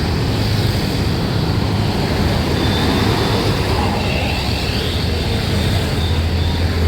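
Steady low engine rumble and road noise of a heavy vehicle, with no horn sounding.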